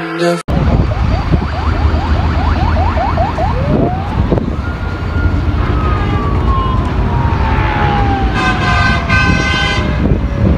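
A siren: a run of quick rising yelps, then a single wail that rises and falls slowly over several seconds, over steady road rumble and wind noise.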